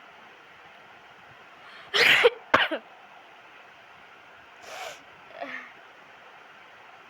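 A woman sneezing: one loud explosive sneeze about two seconds in with two short sharp follow-ups, then two fainter breathy sounds a few seconds later. The sneeze is forced by tickling the nose with a rolled-up strip of paper.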